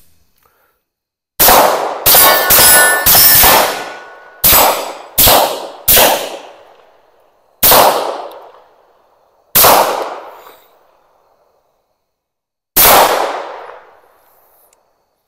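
Tisas PX9 Gen 3 9mm pistol firing about ten shots, each with a decaying echo. The first several come in quick succession, under half a second to a second apart. The last few are spaced out by about two to three seconds.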